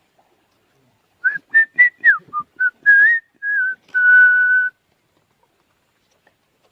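A person whistling a short tune: a quick run of pitched notes with slides, ending on a longer held note.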